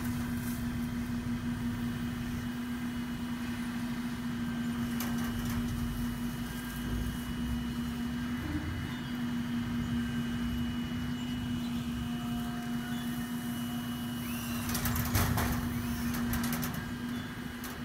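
Claw truck's engine and hydraulic boom running with a steady hum while the grapple swings a load of tree branches over the dump bed. Near the end, a burst of crackling as the branches are handled over the bed.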